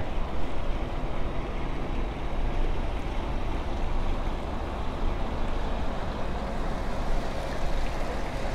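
Steady low rumble and hiss of wind on the microphone on an open rooftop terrace.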